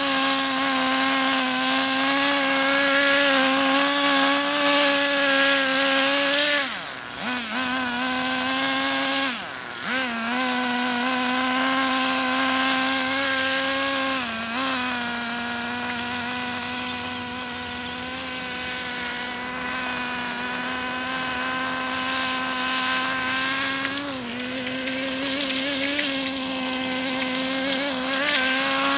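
Nitro RC car's small two-stroke glow engine running at high, steady revs. The throttle is lifted briefly about seven and nine and a half seconds in, where the pitch dips and the sound drops, with a few shorter dips later.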